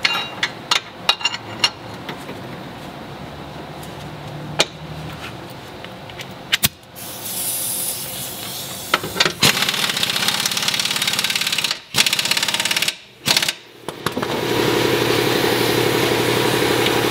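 Impact gun with a 19 mm socket hammering a bolt tight, in short bursts from about halfway through and then a longer steady run near the end. A few light clicks and knocks from the socket being fitted come first.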